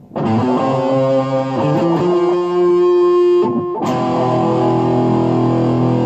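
Guitar music: chords kick in just after the start, break off briefly about three and a half seconds in, then carry on with held chords.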